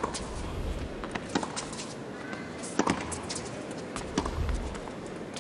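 Tennis rally: racket strikes on the ball, a sharp hit about every second and a half, with the ball's bounces between, over a steady crowd hum.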